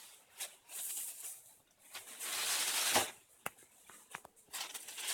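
Gift wrapping paper rustling and tearing in irregular bursts as a present is unwrapped, with a few short sharp clicks about two-thirds of the way through.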